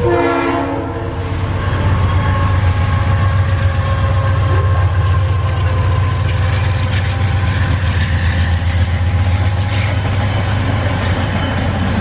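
Diesel passenger train passing close by: a short horn blast in the first second as the locomotive goes by, then a steady low rumble and the clatter of the passenger coaches' wheels rolling over the rails.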